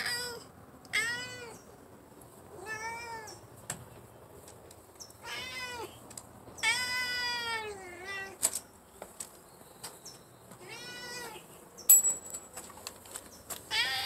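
Longhaired ginger-and-white cat meowing repeatedly, about six rising-and-falling meows with the longest near the middle: a hungry cat begging. A few sharp clicks come between the meows, the loudest about two seconds before the end.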